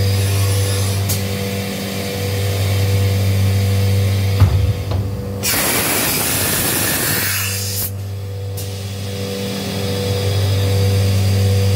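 Steady mechanical hum of a CNC machining centre. About four seconds in comes a sharp clack, then a hiss of compressed air lasting about two seconds, as the spindle head with its tool and brush skirt moves into position.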